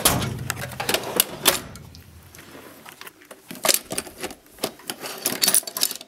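Irregular sharp clicks and light knocks of tools and small hard objects being handled in a workshop, denser in the first second and a half and again from about three and a half seconds on.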